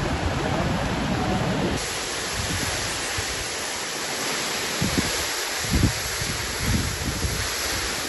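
Steady rush of falling water from a waterfall, after a cut about two seconds in from the gentler sound of a clear creek, with a few low bumps of wind on the microphone.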